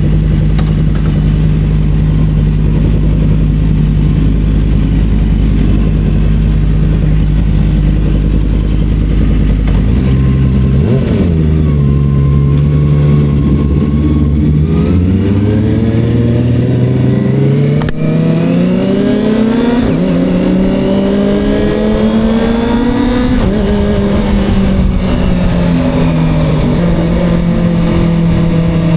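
Motorcycle engine idling steadily, then pulling away about ten seconds in and accelerating, the revs climbing in long rises with a drop at each gear change.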